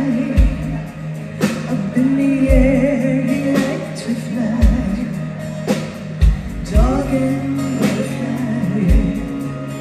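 Live rock band playing: two women singing the chorus over drum kit, bass guitar and cymbals, with a kick drum hit about every second.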